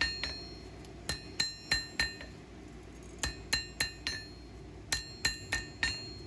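Light hammer taps on a high-carbon steel blade over the anvil horn, each blow ringing briefly, in quick groups of three to five, to kick the handle section down. A steady low hum runs underneath.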